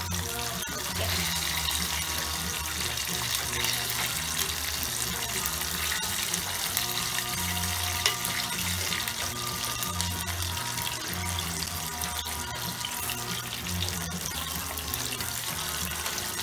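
Chicken pieces crackling and sizzling steadily in hot oil in a pot, with a single click about halfway through. Background music with a repeating low bass line plays underneath.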